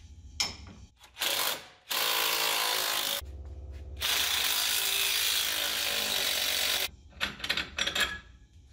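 Cordless power tools, an electric ratchet and a drill/driver, spinning bolts loose in bursts: a brief run about a second in, then runs of about a second and about three seconds. A few quick clicks follow near the end.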